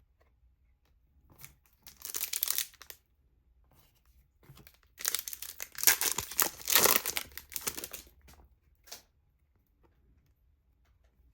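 Trading-card pack wrapper being torn open and crinkled: a short burst of tearing about two seconds in, then a longer stretch of tearing and crinkling from about five to eight seconds, and one last brief crackle near nine seconds.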